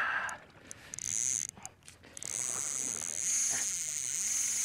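Fly reel drag buzzing in a steady high whine as a hooked mako shark pulls line off the reel. It starts about a second in, stops briefly, then runs on.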